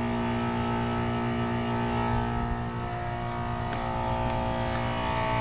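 1989 Carrier Tech 2000 five-ton central air conditioner condenser unit running: a steady electrical hum from its Tecumseh compressor and fan motor.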